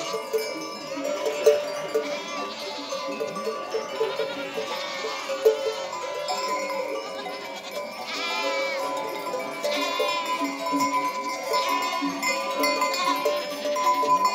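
Many goat bells of different pitches clanking and ringing together without a beat as a large herd of goats moves along, with goats bleating here and there.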